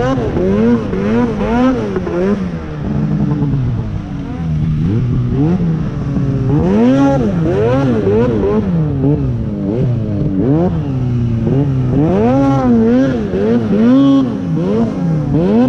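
Arctic Cat Alpha One snowmobile's two-stroke engine revving up and down over and over, roughly once a second, as the throttle is worked. It is carving under load through deep powder snow.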